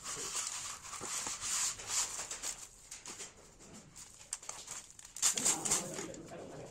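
Crushed dry instant noodles and shredded vegetables being tossed and mixed by hand on a steel platter, making a crisp rustling and crunching. It is loudest in the first couple of seconds and again about five seconds in.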